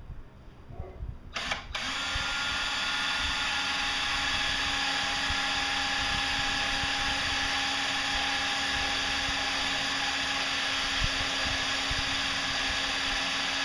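Power drill with a 3/4-inch spade-type speed bore bit boring a hole through the wall of a plastic water basin. It starts about a second and a half in and then runs steadily with a constant whine.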